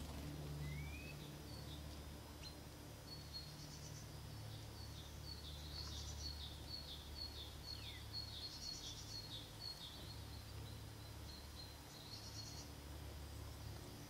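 Small songbirds calling: quick, short, high chirps, several a second, from about three seconds in to about ten, and once more near the end, over a steady low hum.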